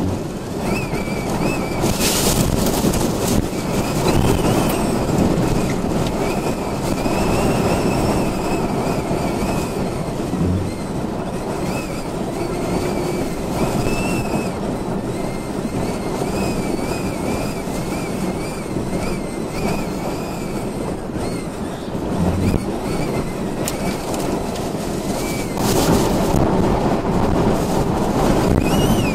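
Storm-force wind blowing hard, a dense rumble with a high whistle that wavers up and down in pitch, and stronger gusts about two seconds in and again near the end.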